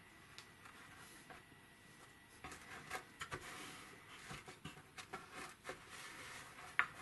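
Faint handling sounds of felt being rubbed and pressed into a wooden case, with scattered light clicks and rustles from about two and a half seconds in and one sharper click near the end.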